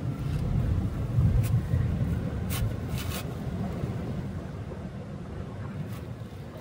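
Low, uneven outdoor rumble, strongest in the first two seconds and then easing off, with a few faint clicks.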